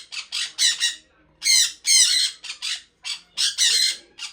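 Red-factor sun conure chirping: a rapid series of about a dozen short, high-pitched calls in quick groups, broken by two brief pauses.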